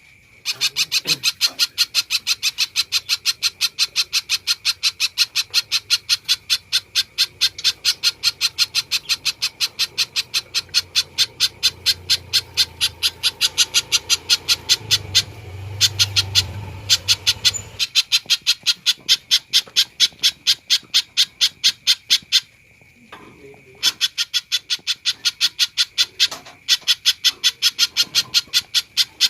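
Spiderhunter (pijantung) calling hard: long runs of sharp, evenly repeated notes at about four a second, broken by a pause of about a second some twenty-two seconds in.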